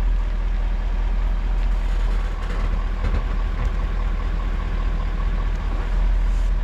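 Ford F-250 pickup truck's engine running steadily at low speed as the truck slowly reverses with a travel trailer in tow.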